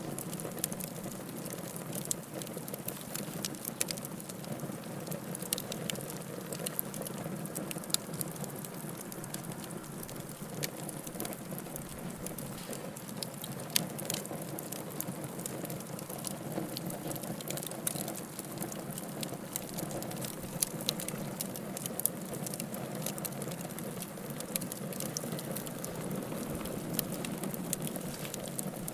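Bonfire burning: wood crackling with many short, sharp pops at irregular intervals over a steady low rush of flames.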